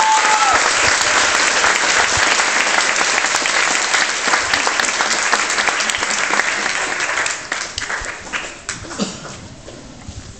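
Audience applauding and clapping, the last held note of the music ending just as it starts; the applause dies away from about seven seconds in.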